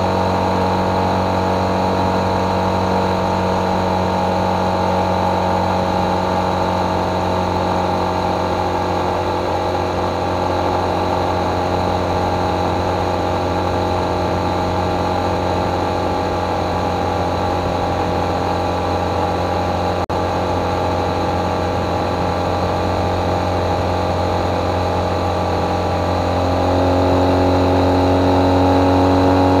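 Motorcycle engine running steadily at road speed, heard from a camera mounted on the bike. Near the end the engine note changes and grows a little louder.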